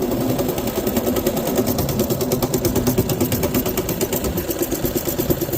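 Coleman B200R minibike's single-cylinder four-stroke engine running at a steady speed with a fast, even exhaust pulse. It is on a replacement carburetor and keeps running without stalling.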